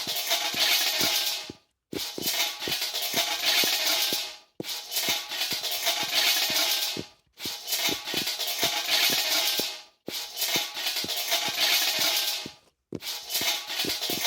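A dense shaker-like rattle of many small clicks, played as a repeated phrase of about two and a half seconds that stops briefly and starts again, about five times over.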